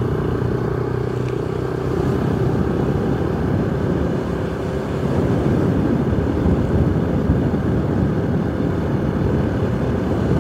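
Yamaha YBR 125's single-cylinder four-stroke engine running steadily at cruising speed, heard from the saddle. Road and wind noise thicken about halfway through.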